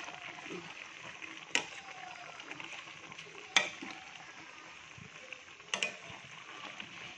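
A pot of vegetables with sweet potato leaves sizzling steadily while a spoon stirs them. The spoon knocks sharply against the stainless steel pot three times, about two seconds apart, the middle knock the loudest.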